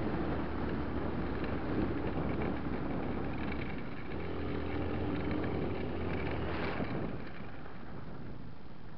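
Enduro motorcycle engine running as the bike rides a gravel track, recorded on board with wind on the microphone. It gets a little quieter from about seven seconds in.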